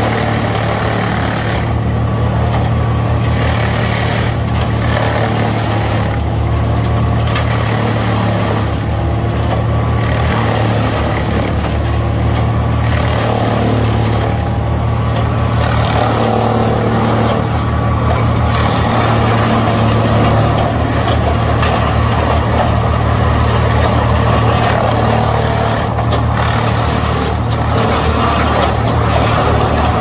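Wood chipper's engine running steadily under load with a strong low hum, while evergreen branches are fed in and chipped with an irregular crackling.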